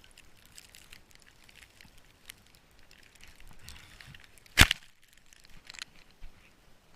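One sharp, loud crack or knock a little over halfway through, among faint scattered crackling and crunching.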